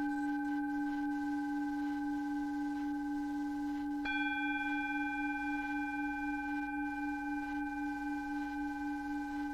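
Steady synthesized drone of layered pure tones, the lowest pulsing gently a few times a second. A new higher tone joins with a soft click about four seconds in.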